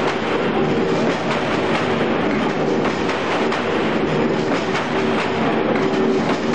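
Heavy-duty hexagonal gabion mesh weaving machine running: a loud, steady mechanical clatter of many clicks over a steady hum.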